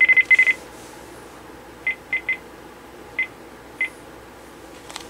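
Sanyo cordless phone handset beeping as its keys are pressed: short high beeps, several in quick succession at the start, three quick ones about two seconds in, then two single beeps.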